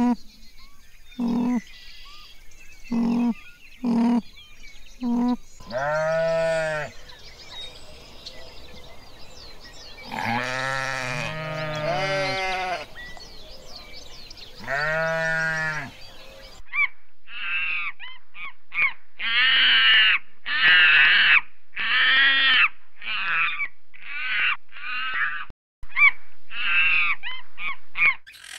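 A run of animal calls: short pitched calls about once a second, then several long wavering bleat-like calls, two voices overlapping in the middle, and after an abrupt change a quick series of high-pitched chirping calls.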